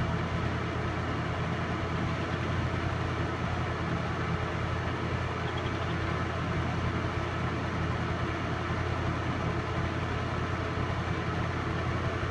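Film projector running: the steady hum of its motor and fan, unchanging throughout.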